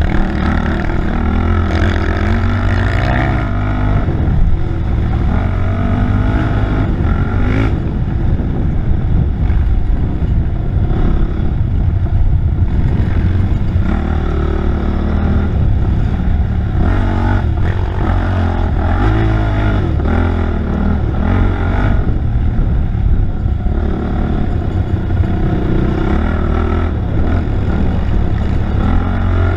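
Off-road racing engine heard on board, revving up and down continuously under hard riding, over a heavy low rumble.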